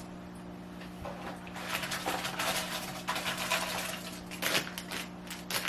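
Plastic packaging rustling and crinkling as it is handled, in uneven crackly bursts, over a steady low hum.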